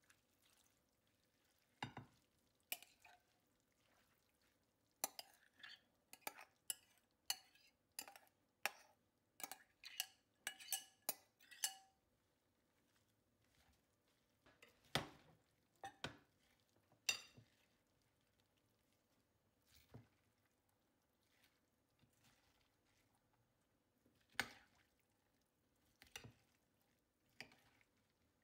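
Metal spoon clinking and scraping against a glass baking dish while spreading and stirring raw buckwheat into chopped vegetables. A quick run of clinks comes in the first half, then a few spaced knocks.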